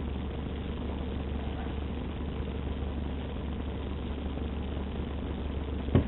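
Utility bucket truck's engine idling steadily, a low, even hum. A single short knock sounds near the end.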